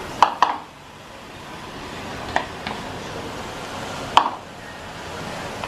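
Sharp clinks of a metal utensil against a cooking pot: two near the start, two about halfway and a louder one about four seconds in. Under them runs a steady hiss of rice and vegetables frying in the pot.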